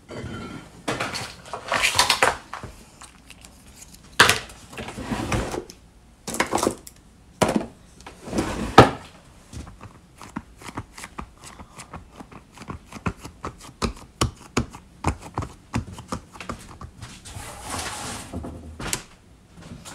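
Hands smoothing and pressing a sheet of foam clay over a styrofoam gumdrop form: soft rubbing strokes with many scattered light taps and clicks. The louder rubbing strokes come in the first half.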